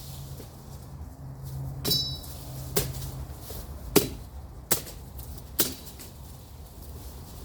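Machete chopping through brush: five sharp strikes, roughly a second apart, the first with a brief metallic ring.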